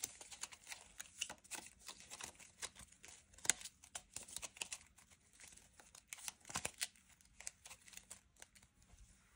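Small paper game cards being mixed up by hand on a tabletop: faint, scattered rustling and light tapping, with a few louder taps about three and a half seconds in and again near seven seconds.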